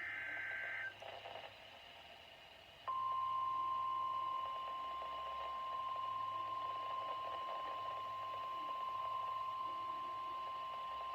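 Emergency Alert System broadcast on NOAA Weather Radio: a short burst of the screechy digital SAME header data, then, about three seconds in, the steady single-pitch 1050 Hz weather radio alert tone starts abruptly and holds. This signals that a new warning is about to be read.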